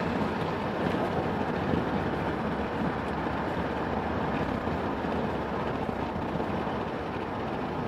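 Steady road and engine noise of a car driving along a highway.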